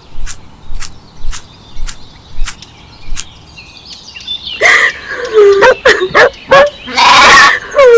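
A row of sharp, evenly spaced clicks, about two a second, then from about halfway several farm animals bleating loudly in overlapping, wavering calls.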